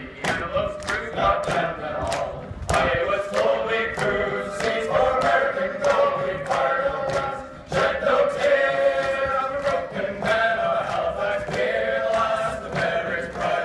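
A group of pipe band members singing a rousing folk song together a cappella, unaccompanied by their bagpipes, with a steady beat of sharp knocks keeping time about three times a second.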